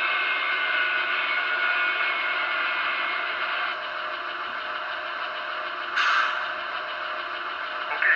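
HO-scale MTH Union Pacific 'Veranda' gas-turbine locomotive model's sound system playing the turbine at idle through its small onboard speaker: a steady whine of several held tones, one of them sliding slowly lower over the first few seconds. About six seconds in comes a brief hiss.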